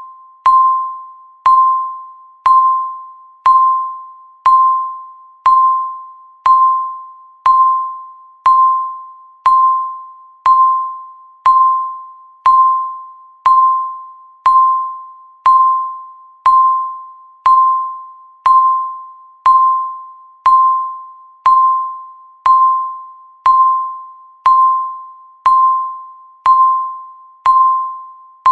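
Countdown timer's electronic ding sounding once a second, marking each second of the count: a single clear mid-pitched tone, struck sharply and fading out before the next.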